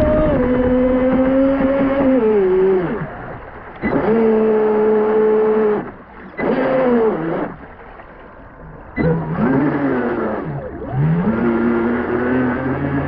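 Brushless motor of a Pro Boat Sonicwake V2 36 RC speedboat on 6S whining in repeated throttle runs, about five in all. Between runs it drops off for a second or so. In the later runs the pitch dips and rises.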